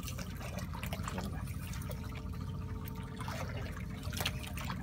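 Seawater sloshing and lapping against the hull of a small boat, over a steady low rumble, with a few brief splashes or knocks.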